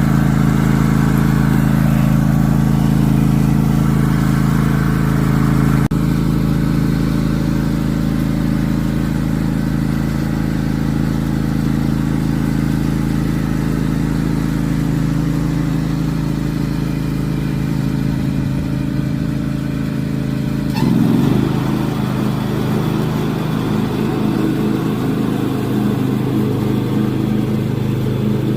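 John Deere X500 riding lawnmower engine running steadily under way. Its note changes briefly about three quarters of the way through, then settles again.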